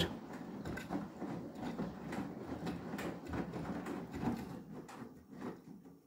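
Beko WTK104121W washing machine drum turning at wash speed, wet, sudsy laundry sloshing and tumbling inside it. The sound fades away near the end.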